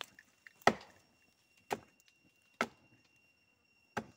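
Axe chopping into a standing tree trunk: four sharp strikes about a second apart, the first the loudest.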